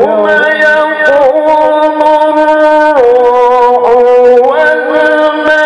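Male qari reciting the Quran in the drawn-out melodic tilawah style, holding long ornamented notes into a microphone. The pitch steps down about three seconds in and climbs again about a second and a half later.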